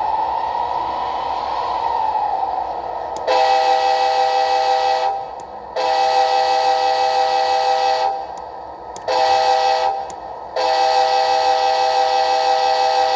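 HO-scale Athearn Genesis P42DC model's Tsunami sound decoder, heard through its small onboard speaker. It plays the diesel engine running, then from about three seconds in sounds a multi-tone horn in four blasts: long, long, short, long, the grade-crossing signal.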